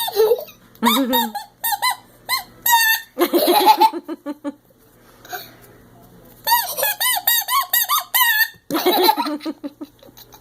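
A toy horn tooted in quick runs of short, squeaky honks that bend up and down in pitch, in two bursts, with a person laughing after each burst.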